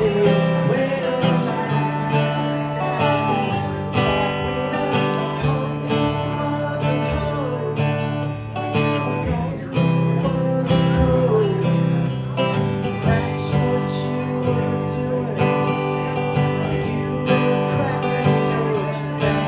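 Acoustic guitar strumming steadily, with a melody line above it that slides in pitch.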